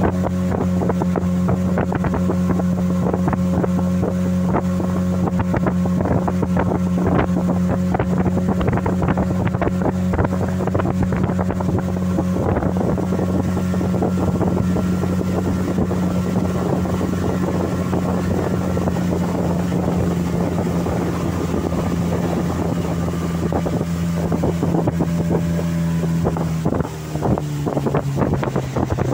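Outboard motor pushing a small fibreglass boat along at a steady speed, with wind buffeting the microphone. Near the end the motor's pitch drops as it is throttled back.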